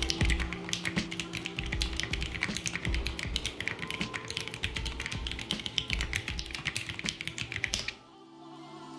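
Typing on a mechanical keyboard with vintage Cherry MX Black linear switches on an aluminium plate: rapid key clacks over background music with a beat. The typing stops about eight seconds in.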